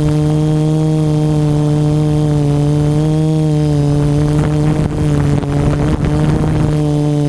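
Quadcopter's four RC Timer 2830 1000KV brushless motors spinning 10-inch carbon-reinforced props in flight. It is a steady, loud buzz heard close up from a camera mounted on the frame. The pitch wavers slightly, with a brief rougher, scratchy patch about five seconds in.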